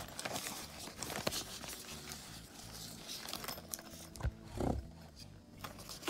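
Hands handling a nylon zippered carrying pouch: fabric rubbing and rustling with scattered small clicks and taps, and a thump about four seconds in, over a low steady hum.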